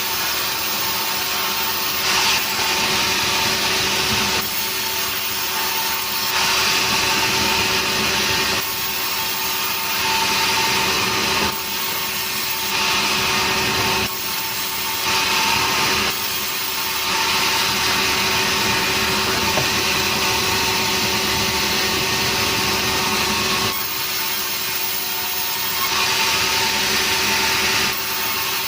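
Sawmill saw running steadily and cutting through nering wood, with a constant machine hum under a hiss of cutting that swells and eases every couple of seconds.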